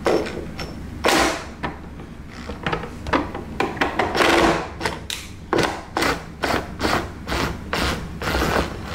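Irregular plastic clicks and knocks, with some scraping, as a dishwasher's rear leveling leg is turned down by its adjustment screw.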